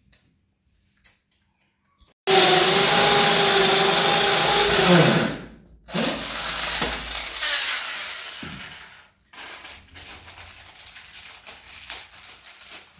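Corded electric drill boring into a wall: one run of about three seconds whose pitch drops as the motor spins down, then a second, shorter run that trails off, followed by quieter handling noise.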